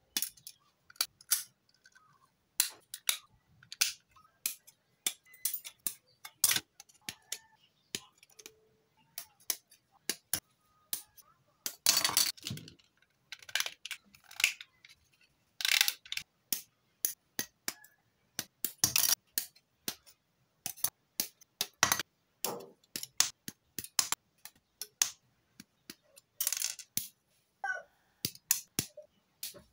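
Plastic model-kit parts being snipped off their sprues with side cutters: a string of sharp, irregular snaps and clicks, with a short rattle of plastic being handled about twelve seconds in.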